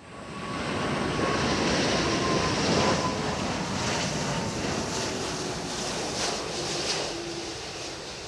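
Airbus A340-600's four Rolls-Royce Trent 500 jet engines as the airliner passes low on final approach: a loud jet rush that fades up, is loudest a couple of seconds in and then eases off, with a faint engine whine sliding slowly down in pitch as it goes by.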